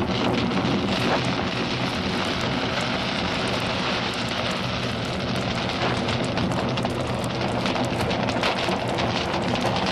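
Large fire burning through a wooden building: a steady rushing noise thick with crackles.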